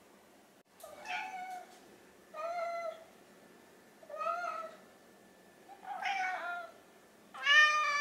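Domestic cat meowing five times, about a second and a half apart, the last the loudest: begging meows from a hungry cat wanting to be fed.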